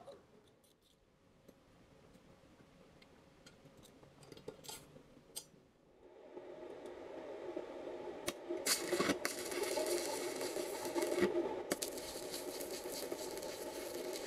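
A few light metal clicks and taps as steel parts are handled. About nine seconds in, a stick (arc) welder strikes an arc on sheet steel and crackles and hisses steadily, with one short break.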